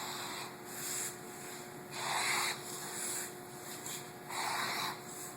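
A seam groover cutting a weld groove into vinyl sheet flooring along a seam. It scrapes in separate strokes about every two seconds, three in all, with the second and third the loudest.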